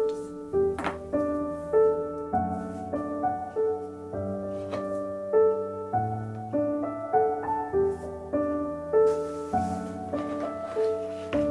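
Soft background piano music: a gentle melody of single notes over sustained bass notes, at a steady unhurried pace.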